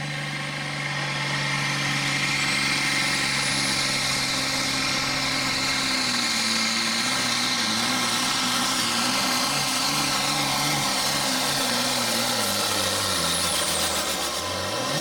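Pro Farm pulling tractor's turbocharged diesel engine at full throttle, dragging the sled down the track. A high turbo whine climbs over the first few seconds and holds. From about halfway the deep engine note wavers and sinks as the sled loads it down, and near the end the whine falls away as the tractor lets off.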